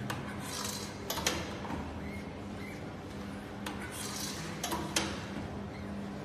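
Hand screen-printing with a metal screen frame and squeegee: sharp clacks as the frame knocks onto the printing table, and scraping strokes of the squeegee across the mesh. A low steady machine hum runs underneath.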